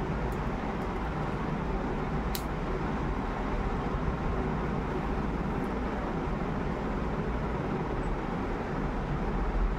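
Steady background noise, a low hum under an even rushing hiss, with one small sharp click about two and a half seconds in.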